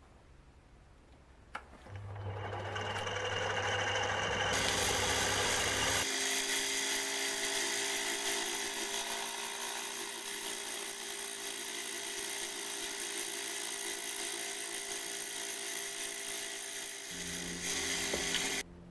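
Small metal lathe running a facing cut on a faceplate-mounted part, with a cordless drill whining as it powers the cross-slide feed. A low hum starts about two seconds in, the cutting and drill noise come in a couple of seconds later, and it all stops suddenly near the end.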